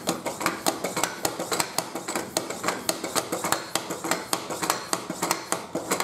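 Foot pump being pumped steadily, its pedal and body clicking and clattering about four times a second as it inflates a car tire to seat the bead on the rim.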